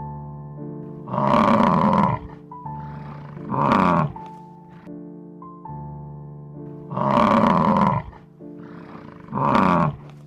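Four loud calls from a large animal, each about a second long and falling in pitch, coming in two pairs, over background music with sustained keyboard chords.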